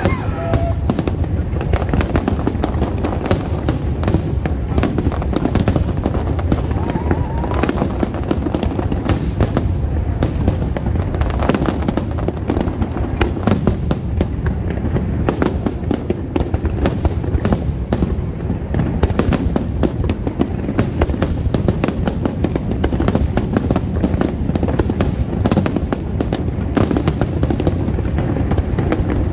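Aerial fireworks display going off without a break: a dense stream of launches, bangs and crackling bursts in quick succession.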